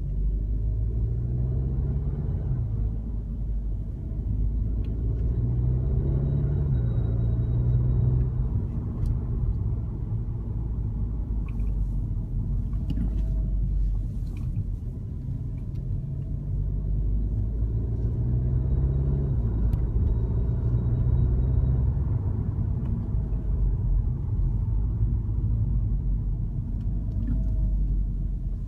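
2014 Audi S3 8V driving, with steady engine and road rumble that swells and eases with the throttle. About two-thirds of the way in, a metallic rustling noise comes through that the owner cannot account for.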